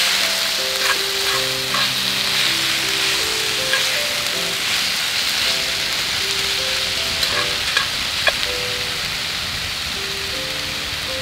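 Keichan chicken and cabbage sizzling hard in an iron frying pan, a steady frying hiss with scattered sharp pops of fat. Light background music of held notes plays underneath.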